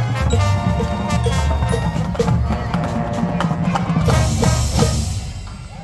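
Marching band with drumline and front-ensemble mallet percussion playing the last bars of its show: sustained brass chords over heavy drums and a steady tick a little over twice a second. A cymbal-like crash comes about four seconds in, and the music dies away near the end.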